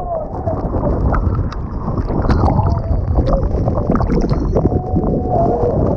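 Waterfall pouring into its pool close to the camera: a loud, steady rush of falling water, with splashing and water knocking against the microphone.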